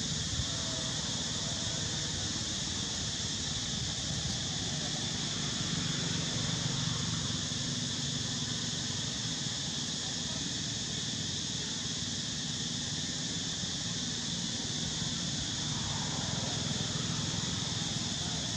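Steady, unbroken drone of insects, high-pitched, over a low background hum.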